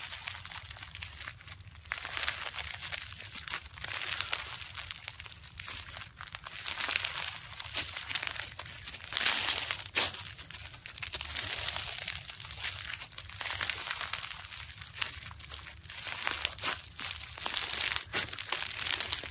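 Slime being squeezed and worked by hand, a continuous crackling with many small clicks that swells and eases as it is pressed.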